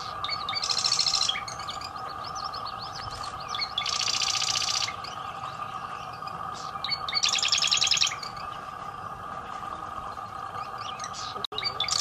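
Marsh wren singing: three rapid, rattling trills, each about a second long and about three seconds apart, with soft ticking notes in between and a fourth trill starting at the very end. A steady hum runs beneath.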